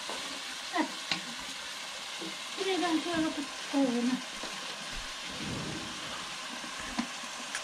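Food sizzling as it fries in a pan, a steady hiss, with a few light clicks.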